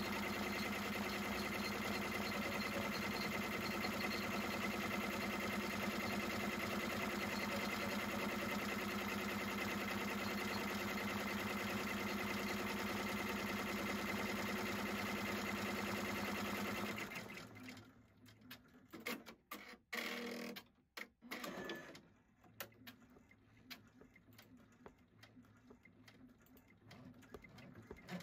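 Embroidery machine stitching with a steady, even running sound, which stops suddenly about two-thirds of the way through. A few faint clicks follow.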